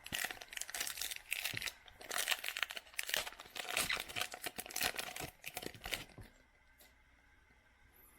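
Foil trading-card pack wrapper crinkling and tearing open, a dense crackly rustle that stops about six seconds in.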